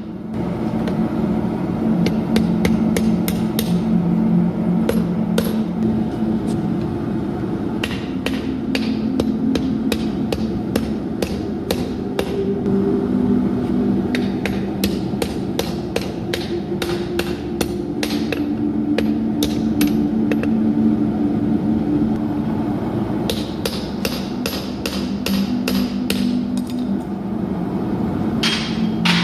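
Hammer blows on steel at the anvil, coming in quick runs of strikes with short breaks between them, as an old file is forged into a knife blade. A steady low hum runs underneath.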